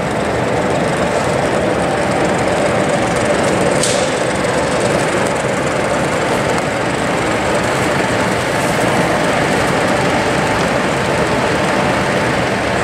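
A DCC sound-fitted 7mm O gauge model diesel locomotive running past. Its onboard speaker plays a steady diesel engine note as it hauls a train of wagons along the track.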